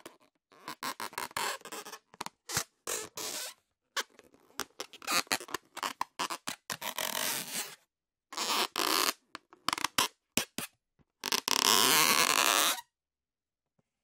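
Rubber balloon being rubbed, giving irregular squeaks and groans in short strokes and longer bursts with gaps between, the longest and loudest squeal near the end.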